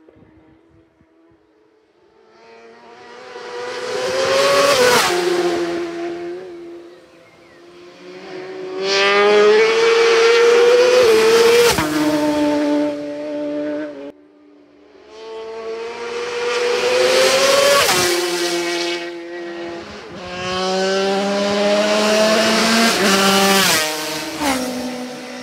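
Racing motorcycles passing one after another at full speed, about four passes. Each high-revving engine note rises as the bike approaches, then drops sharply in pitch as it goes by.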